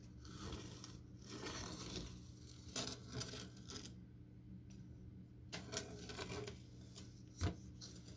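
Objects being handled: rustling with a few sharp knocks or clicks, the loudest about three seconds in and again near the end.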